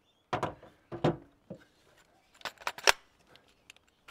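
Handling of a cordless drill while a battery pack is slid on and clicked into place: a run of sharp plastic clicks and knocks, the loudest about three seconds in.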